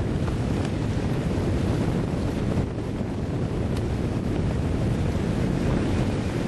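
Wind buffeting the microphone over the steady rush of water along a sailing yacht's hull while under way.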